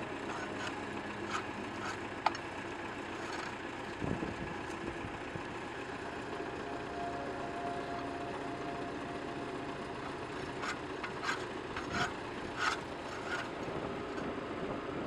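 Tractor engine running steadily in the background, with scattered metallic clicks and knocks: a sharp click a couple of seconds in, a knock about four seconds in, and a run of clicks near the end.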